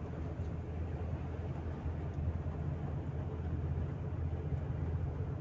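Steady low rumble of a road vehicle in motion, with no distinct events.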